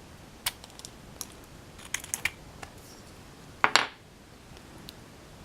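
Small sharp metal clicks as a Uchange lock core is fitted back into its lock body: a few single clicks, a quick cluster about two seconds in, and a louder double click a little before the end.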